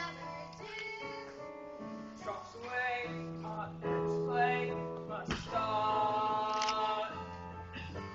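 A stage cast singing a musical number with instrumental accompaniment, holding long sung notes. There is a brief thump about five seconds in.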